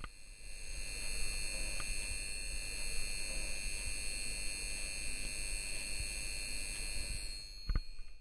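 Electrical buzz of a glowing light bulb in a logo sound effect: a steady high-pitched whine over a low hum that fades in and holds, then a sharp click near the end as it cuts out.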